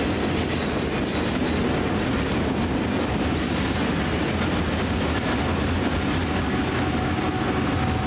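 Freight train passing close by: a steady rumble and rattle of its wagons running on the rails.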